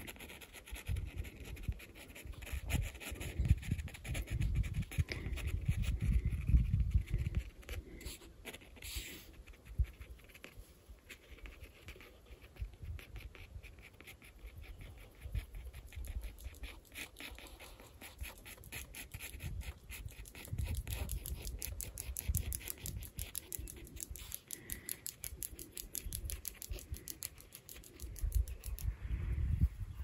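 Pencil scratching in short strokes on watercolor paper as tree trunks are sketched, with gusts of wind rumbling on and off over the lapel microphone.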